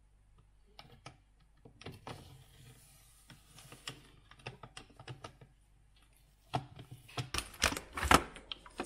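Handling of a Roborock robot vacuum's plastic mop parts: scattered small clicks and cloth rustles as the mop cloth is pulled off the mop bracket, then a run of louder plastic clicks and knocks near the end as the water tank and mop bracket are fitted to the robot.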